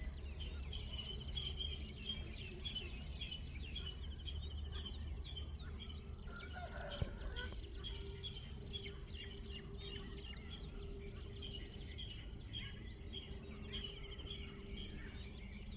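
Birds chirping over and over, a few calls a second, against a steady high insect drone, with one sharp tap about seven seconds in.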